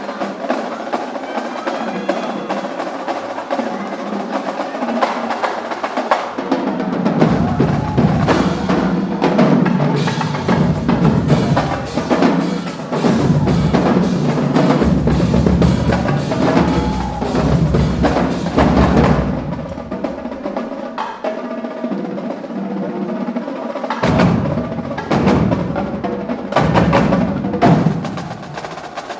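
Marching band drumline playing a cadence: rapid snare drum and tenor drum strokes, with the bass drums coming in about a quarter of the way through, dropping out past the middle and returning near the end.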